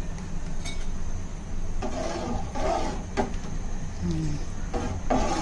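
Hot water being poured into a pan of simmering misal gravy, a splashing pour that comes in spells, strongest about two seconds in and again near the end, over a steady low hum.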